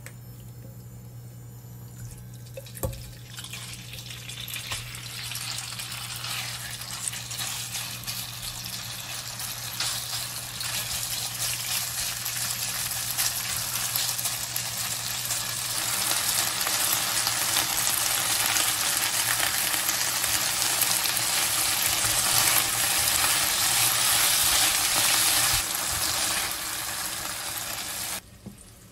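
Diced chicken breast frying in oil in a nonstick wok, a crackling sizzle that builds steadily louder as the pieces are stirred with a spatula. A sharp knock comes about three seconds in, a low steady hum runs underneath, and the sizzle cuts off suddenly near the end.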